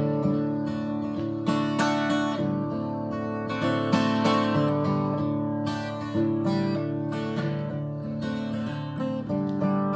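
Acoustic guitar strummed in a steady rhythm, moving through a few chords.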